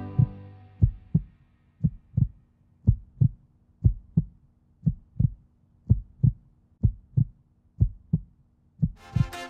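Heartbeat sound effect: paired low thumps, lub-dub, about one beat a second, over a faint steady hum. Music fades out at the start, and new music comes in near the end.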